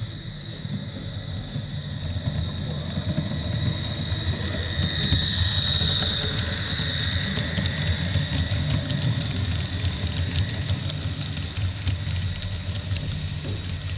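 HO-scale model Tri-Rail train running past: the locomotive's small electric motor and gearing give a high whine that swells as it comes close, over a steady low hum. From about halfway on, light rapid clicking of the wheels on the track follows as the coaches roll by.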